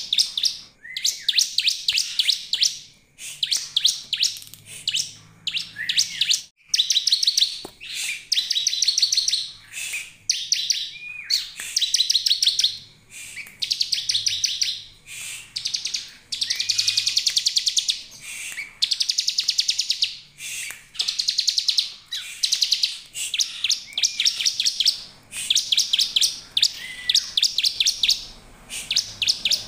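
Bar-winged prinia (ciblek) calling: short bursts of very rapid, buzzy trilling, each opening with a brief rising note, repeated about once a second.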